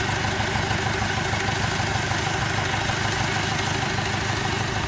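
Small tracked field carrier's engine idling steadily.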